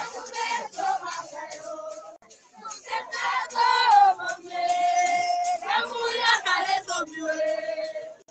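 People in a crowd singing loudly, with long held notes; the singing breaks off suddenly at the end.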